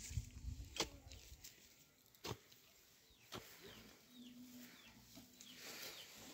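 Faint clucking of chickens, with a few short high chirps and several sharp clicks.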